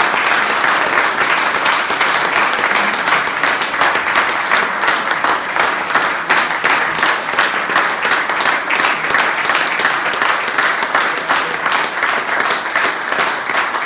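A room of diners applauding, many hands clapping steadily, with some claps close by.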